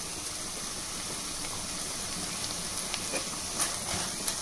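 Chopped onions, tomatoes and green chillies sizzling steadily in hot oil in a steel pan, with a couple of light ladle scrapes near the end.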